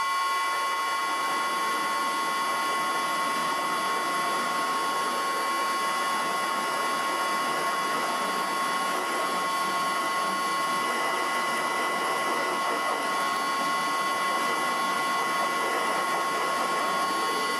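Karger metal lathe parting off a spinning metal workpiece at 300 RPM: a steady high whine from the machine under the rough, noisy cutting of the parting tool biting into the groove.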